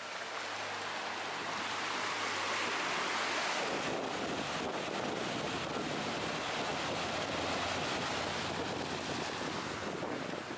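Ocean surf breaking and washing in over a flat rock shelf at the water's edge: a steady rush of churning, foaming water.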